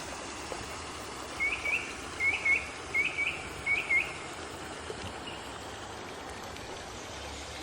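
A bird calling in four quick pairs of short rising notes, over a steady rush of flowing water.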